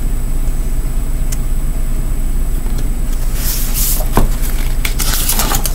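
Paper rustling and a soft click as a picture book is handled, about three and a half seconds in and again near the end, over a steady low hum.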